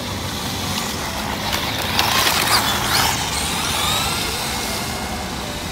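1/18-scale RC truck with a 370–380 size brushed electric motor running flat out on asphalt: a rush of motor whine and tyre noise, loudest about two seconds in as it passes close, then a thinner whine falling in pitch.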